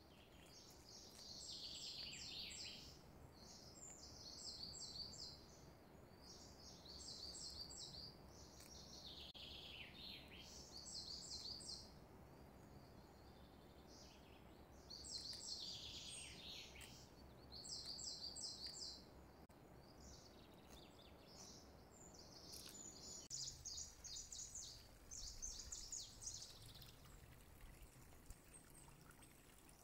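Faint bird song: short, high chirping phrases repeated every second or two, some sliding down in pitch, over a low background hiss.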